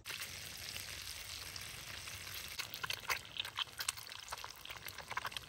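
Food frying in a hot pan: a steady sizzle with frequent crackles and pops that grow busier about halfway through.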